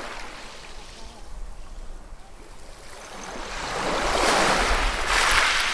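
Ocean waves breaking on the shore: a steady wash of surf that swells from about three seconds in to a loud rush of breaking water, easing off at the end.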